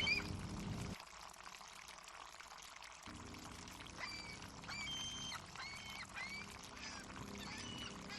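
Harbour ambience: water lapping under a steady wash, with seagulls giving several short, curving cries in the second half. A low pitched sound cuts off about a second in.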